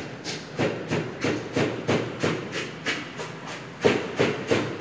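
Knife knocking on a cutting board in a steady chopping rhythm, about three strokes a second.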